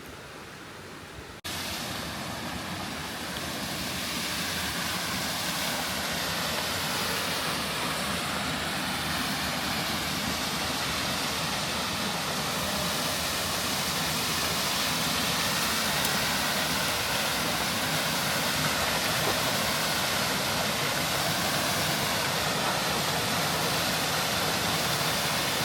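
A steady, loud rushing noise that cuts in suddenly about a second and a half in and cuts off suddenly at the end.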